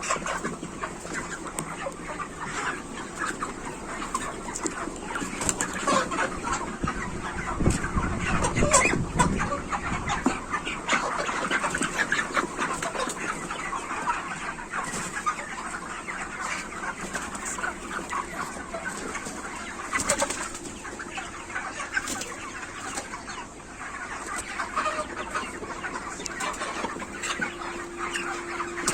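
A large flock of broiler chickens in a shed, many birds clucking and chirping at once with wing flapping and shuffling. A louder stretch of commotion comes about eight to ten seconds in.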